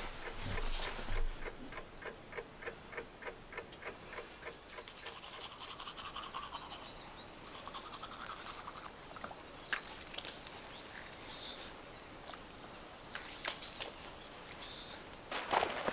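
Toothbrush scrubbing teeth, with a few faint bird chirps. A regular ticking, about three ticks a second, runs through the first few seconds.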